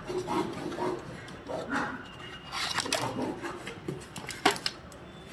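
Melamine plates and dishes clinking and knocking against each other as they are lifted out and stacked, with two sharp knocks about four and a half seconds in.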